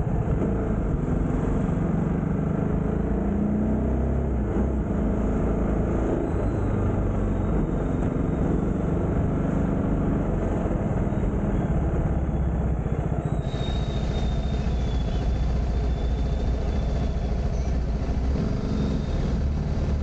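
TVS Apache RR 310 motorcycle's single-cylinder engine running steadily on the move, with a continuous low rumble of road noise from the ride.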